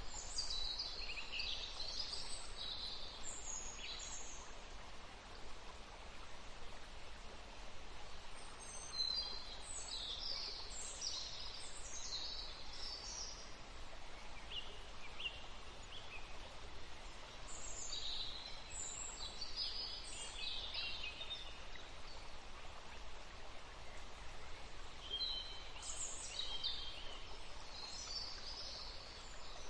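Songbirds chirping in short high bursts that come in clusters every several seconds, over a steady faint hiss.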